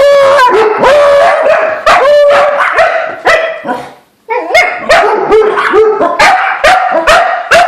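Dogs barking excitedly at a squirrel. The first couple of seconds hold long, drawn-out barks. After a brief pause about four seconds in, the barking turns quick, about three or four barks a second.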